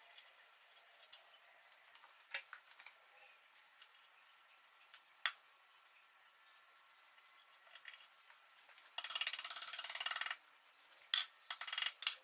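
Metal workshop clicks and rattles: a few sharp light clicks, then a loud fast rattle lasting about a second and a half, followed by a few shorter rattles near the end, typical of a ratchet or mechanism being worked during lathe assembly.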